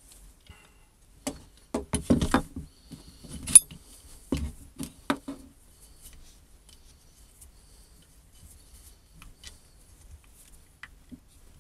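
A small metal G-clamp handled and fitted onto a stone nodule: a run of sharp clicks and knocks in the first half, then faint light ticks as the clamp is worked into position.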